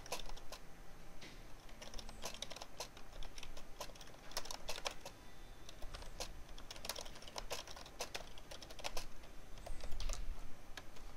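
Typing on a computer keyboard: irregular runs of sharp key clicks with short pauses between them.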